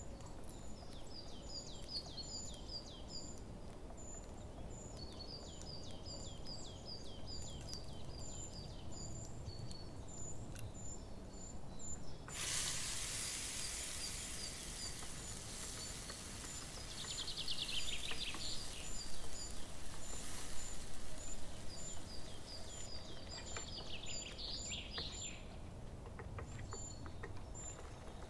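Ground onion paste hitting hot oil with whole spices in a pan: a sudden loud sizzle starts about twelve seconds in and runs for some ten seconds before dying down. Short high bird chirps repeat steadily in the background.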